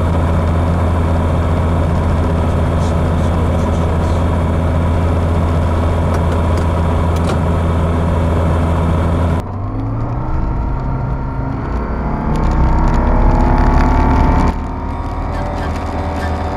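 Light aircraft piston engine running steadily with a low drone. About nine seconds in, a cut switches to the Pipistrel Virus SW's engine heard from the cockpit, its pitch rising steadily as power comes up on the runway.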